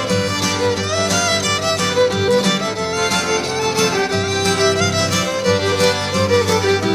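Background instrumental music led by a fiddle.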